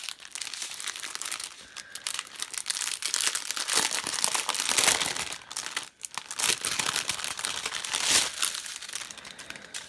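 Clear plastic packaging of a diamond painting kit crinkling as it is handled, with a brief pause about six seconds in.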